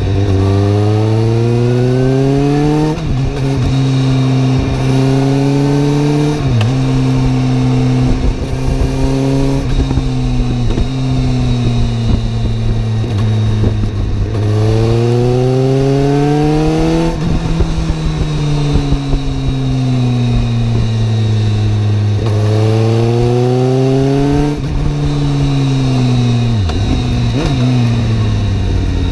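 Suzuki GSR750's inline-four engine riding on the open road: it climbs in pitch under acceleration, drops sharply at each gear change (about three seconds in, again near six and a half, and near the end), holds steady for stretches, and eases down slowly when the throttle is rolled off before picking up again. A steady rushing noise runs underneath.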